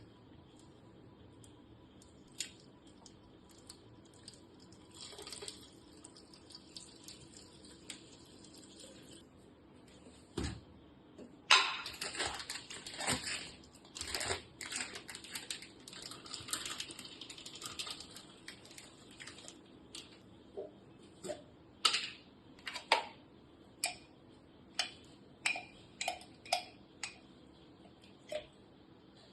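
Small objects handled close to the microphone: a few scattered taps, then several seconds of dense clattering and rustling, then a run of separate sharp clicks and taps, about one or two a second.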